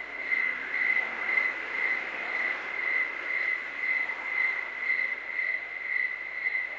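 Crickets chirring: a steady high-pitched trill that pulses about twice a second.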